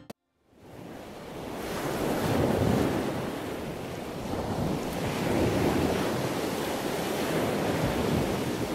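Surf breaking on a beach with wind on the microphone, fading in after a moment of silence. The wash of the waves rises and falls every few seconds.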